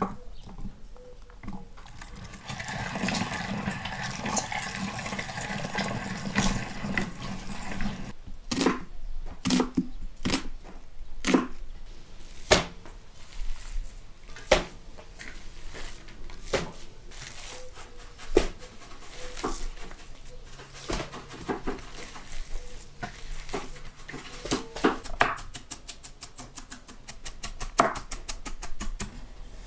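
A run of hand food-preparation sounds. A hand-cranked meat grinder grinds garlic cloves, then hands knead minced meat in a metal bowl with scattered sharp knocks. Near the end a large knife chops onions on a wooden board in fast, even strokes.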